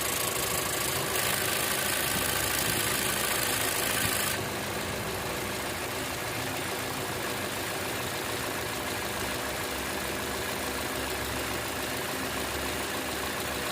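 Toyota Kijang Innova Zenix engine running at idle with a steady hum and an odd noise that the owner cannot place and questions as abnormal. A loud hiss on top of it cuts off suddenly about four seconds in, and the engine then runs on more quietly.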